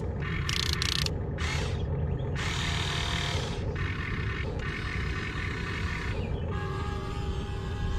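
Huina 1592 RC excavator's electric gear motors whining in short runs that start and stop as the boom and bucket are raised, ending in a steadier pitched whine near the end. A steady low rumble runs underneath.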